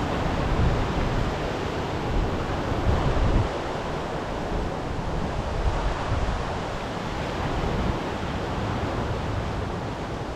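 Sea waves washing on the shore in a steady rush, with wind gusting over the microphone in low rumbles.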